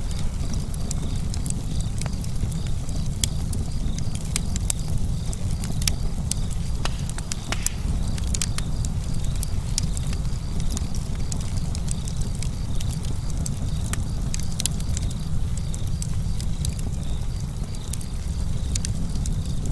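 Outdoor nature ambience: a steady low rumble like wind on the microphone, with scattered sharp clicks and crackles and a faint, high, pulsing chirr throughout.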